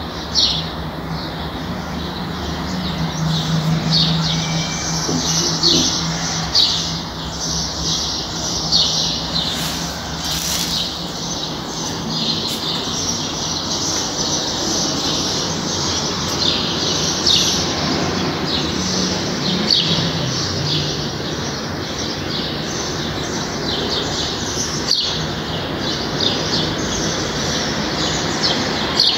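Many small birds chirping, a steady run of quick short calls, over a steady low hum.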